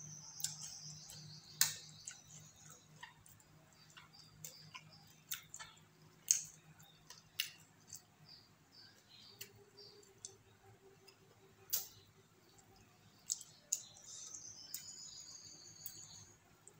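Close-up eating sounds: chewing with irregular, sharp lip smacks and mouth clicks.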